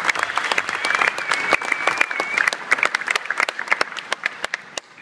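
Large audience applauding, the clapping thinning out and dying down toward the end; someone whistles for a second or two about a second in.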